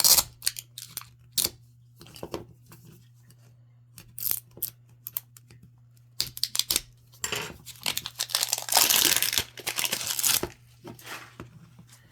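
Packaging being torn open and crinkled as a Miniverse mystery ball is unwrapped: many sharp clicks and short rustles, then a long stretch of tearing and crinkling from about seven seconds in to about ten and a half.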